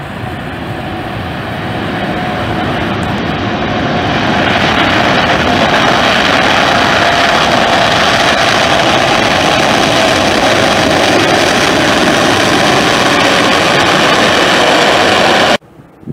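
Twin-engine widebody jet airliner's engines going to takeoff power: a loud jet roar with a faint whine that grows louder over the first few seconds, then holds steady, and cuts off suddenly near the end.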